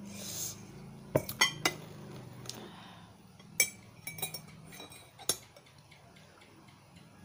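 Metal spoon clinking against a ceramic mug while a drink is stirred: several sharp, ringing clinks spread over a few seconds. A short rustling hiss comes just after the start.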